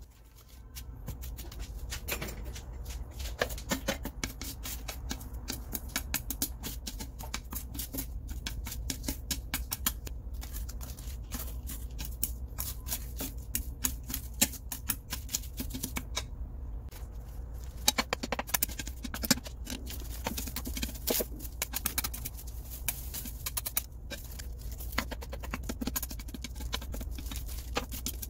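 A sheet of dried laver (gim) seaweed being toasted in a frying pan, crackling and rustling as metal tongs press and turn it, with many small clicks from the tongs against the pan. A steady low hum runs underneath.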